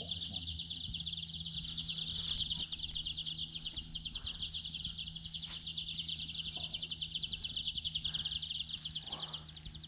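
High-pitched, rapidly pulsing trill of calling animals that goes on without a break, with a single sharp click about five and a half seconds in.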